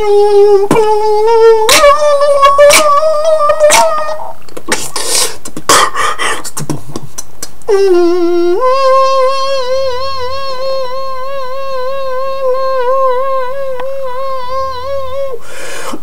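Human beatboxing. The first few seconds are hummed tones that step up in pitch over sharp clicks and kick beats, followed by a run of noisy percussive hits. From about eight seconds in comes one long hummed tone with a slow wavering vibrato, which stops shortly before the end.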